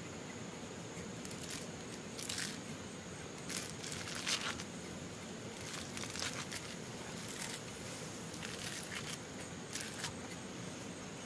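Short bursts of rustling and crackling, about seven of them at irregular intervals, over a steady background hiss.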